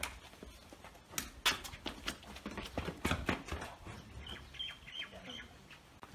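Scattered sharp knocks of backyard cricket play, ball striking bat and the concrete path, with footsteps. About four seconds in, a quick run of short high chirps from a bird.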